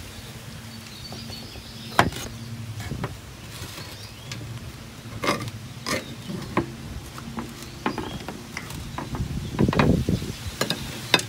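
A blade cutting and scraping through a dense baked loaf in a glass baking dish, with scattered sharp clicks and knocks as it strikes the dish, and a denser scraping about ten seconds in as a chunk is pried out.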